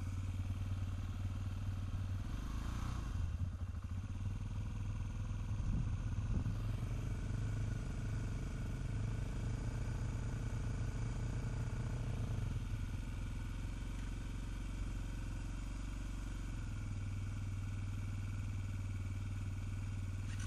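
Small motorcycle engine idling steadily at low revs. A second motorcycle draws up alongside in the last few seconds, and the low engine hum grows stronger.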